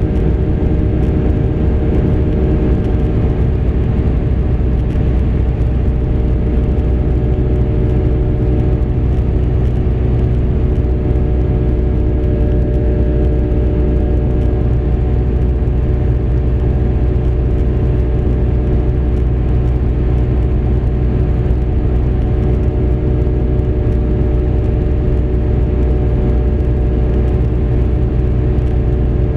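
Tétras ultralight aircraft's engine and propeller running steadily in level cruise, heard from inside the cockpit as a low hum with several unchanging tones.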